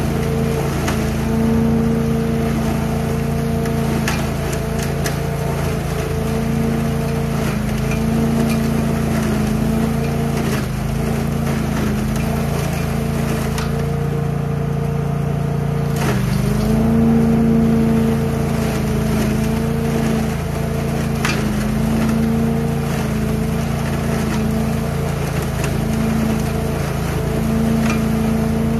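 Billy Goat trailer-mounted truck-loader leaf vacuum running steadily as it sucks leaves up its hose, with scattered sharp clicks. Its engine note dips briefly a couple of times, most deeply a little past halfway.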